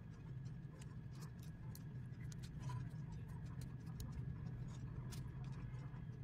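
Diamond painting drill pen pressing small square resin drills onto the sticky canvas: light, irregular ticks and taps, several a second, over a steady low hum.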